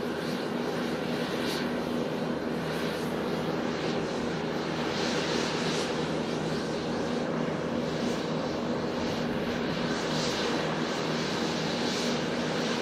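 Boeing 747-8's four GEnx-2B turbofan engines running steadily as the jet taxis: a steady droning hum with a hiss over it.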